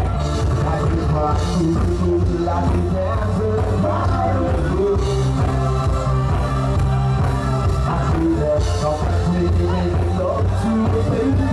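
Loud dance music with a heavy, steady bass line and a singing voice.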